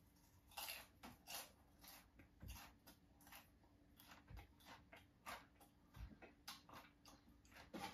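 Near silence: quiet room tone with a faint scatter of soft clicks and rustles, about two a second, from a seated person's small movements.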